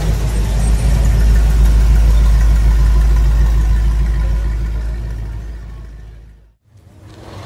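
Bricklin SV-1's V8 engine running as the car drives off, the sound fading as it moves away; it cuts out abruptly about six and a half seconds in.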